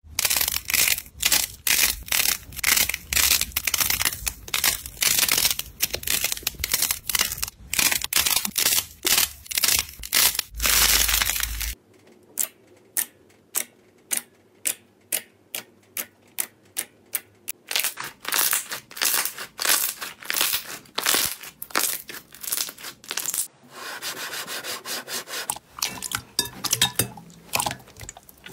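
Slime being squeezed and kneaded by hand, close-miked: a dense run of sticky crackling clicks, then after a sudden change a slower series of single squelching pops about three a second as fingers poke into the slime, and near the end thicker squishing as slime is kneaded in a bowl.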